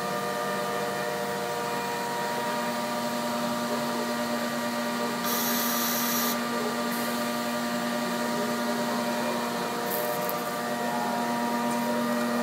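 MultiCam 5000 CNC router running through an automatic tool change: a steady machine hum with several constant tones, and a lower tone joining a couple of seconds in. A sharp hiss comes about five seconds in and lasts about a second, with a briefer one near the end.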